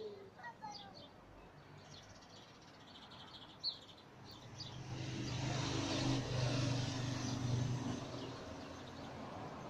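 Small birds chirping. A single knock comes about a third of the way in. Then a motor vehicle passes, its engine hum and road noise swelling over a few seconds and fading away.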